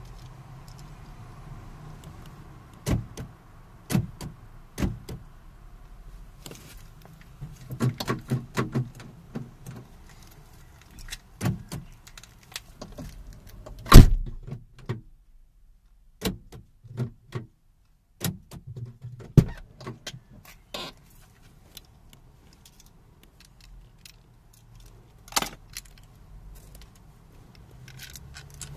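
Irregular clicks, taps and small knocks from hands working on a Renault Clio's plastic door trim panel, with one loud knock about halfway through.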